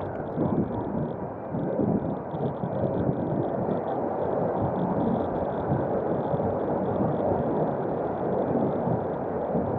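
Steady rush of wind and road noise from a moving bicycle ride, with no clear single event standing out.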